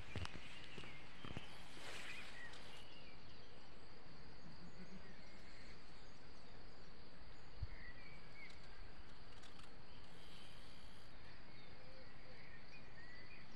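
Steady outdoor background hiss with a few faint, scattered bird chirps.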